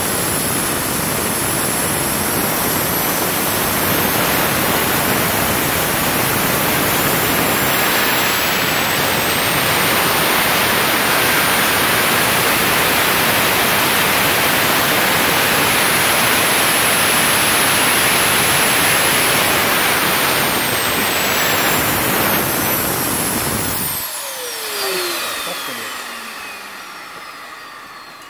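Homemade RC turbofan (TF200-1 prototype) running: a steady rush with a high turbine whine that climbs a little about eight seconds in, holds, then drops back around twenty seconds. About 24 seconds in the rush cuts off suddenly and the whine winds down in falling pitch as the engine shuts down and spools down.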